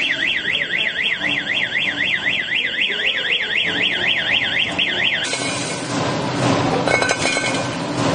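Packaging machine's electronic alarm buzzer sounding a warbling tone that sweeps up and down about five times a second, cutting off about five seconds in. After it, machinery runs with a busy clatter.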